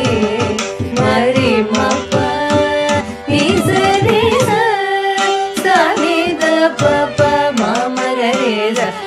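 Carnatic classical music in Rupaka tala. Female vocals and violin carry a melody full of sliding, oscillating gamakas over steady mridangam strokes.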